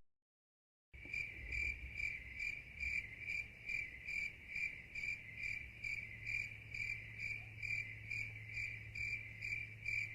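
Crickets chirping sound effect: a steady, even train of high chirps, about two or three a second, starting about a second in and cutting off abruptly. It is the stock 'awkward silence' crickets cue used in memes.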